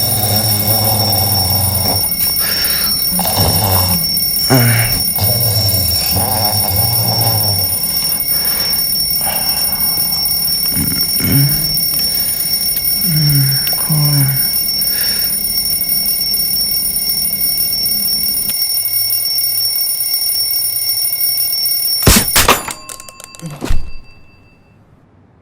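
Alarm clock ringing with a steady, high-pitched tone. It stops at a loud knock near the end, and a second knock follows as the last of the ringing dies away.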